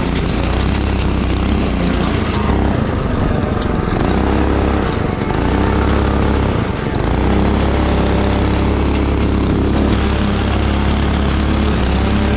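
Go-kart's Predator 212 single-cylinder four-stroke engine running under way. It eases off briefly about five to seven seconds in, then picks up again.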